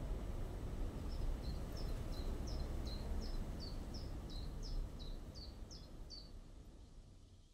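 A small bird calling a quick run of short, falling high chirps, about three a second, over a steady low outdoor rumble. The sound fades out near the end.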